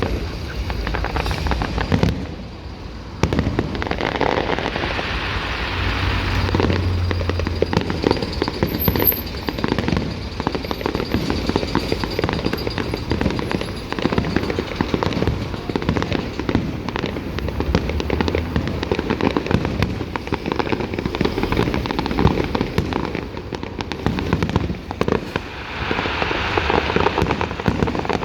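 Fireworks display going off in a dense barrage of bangs and crackles, with a brief lull about two seconds in.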